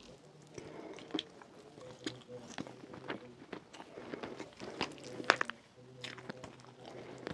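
Close-miked eating sounds: chewing with wet mouth clicks and smacks as soft rfissa (shredded flatbread and chicken in sauce) is eaten by hand, with fingers squishing in the food. The sharpest click comes about five seconds in.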